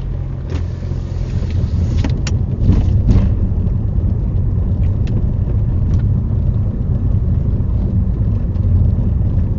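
Car engine and road noise heard from inside the cabin, a low rumble that builds over the first few seconds as the car pulls away and gathers speed, then holds steady at a slow cruise. A few light clicks sound about two to three seconds in.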